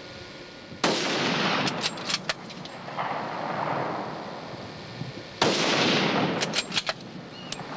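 Two rifle shots about four and a half seconds apart, each followed by a long rolling echo that dies away over a couple of seconds.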